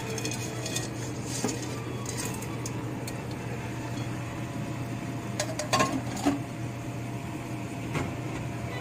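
Pans and utensils knocking and clinking as fried baby crabs are tipped from one pan into a wok of boiling ramyeon, over a steady low hum. The loudest knocks come in a quick cluster about six seconds in, with another near the end.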